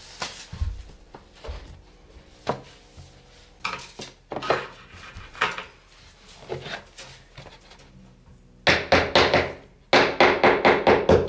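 Laminate flooring work: boards and tools knocking and clattering on a wooden floor, scattered knocks at first, then two bursts of rapid tapping near the end, like a hammer driving boards together.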